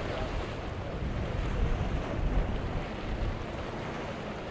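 Wind buffeting the microphone over the wash of choppy water and waves breaking against the rocks, with gusts of low rumble.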